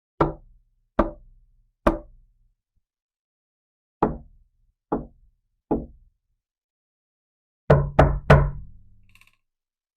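Knuckles knocking on a door: three slow knocks about a second apart, a pause, three more at the same pace, then three quicker, louder knocks in a fast group near the end.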